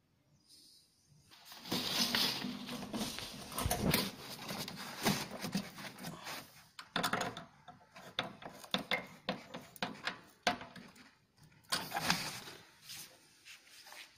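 Irregular rustling, crinkling and clicking of handling noise as a corrugated plastic duct hose is worked onto a small centrifugal blower's outlet and clamped, starting about a second and a half in. No steady fan hum is heard.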